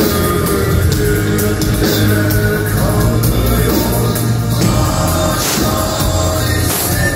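Loud live rock music from a concert sound system, with heavy bass and drums and some singing, heard from among the audience.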